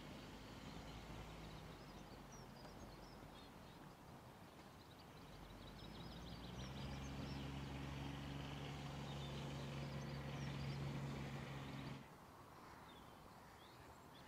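Small birds chirping over outdoor background noise, with a steady low hum that grows louder about halfway through and cuts off suddenly near the end.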